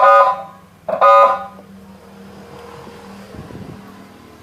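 Multi-tone 'telolet' bus horn sounding two loud, pitched blasts: one cutting off just after the start, another about a second in. A low steady hum follows.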